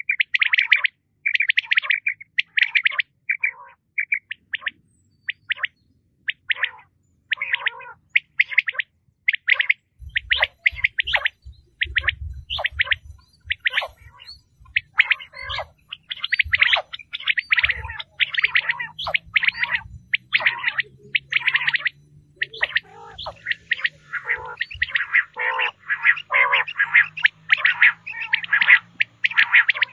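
Common quail calling over and over: clusters of short, sharp notes repeated in quick succession, with hardly a pause.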